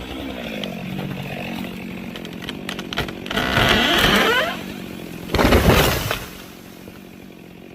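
Excavator engine running under load while a tree is pushed over, with two loud surges of cracking and crashing wood and branches about three and five seconds in.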